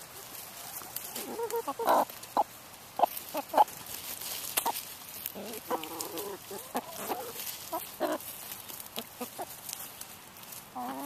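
A flock of hens clucking in short pitched calls while they feed on lettuce, with many quick sharp taps of beaks pecking at the greens and ground.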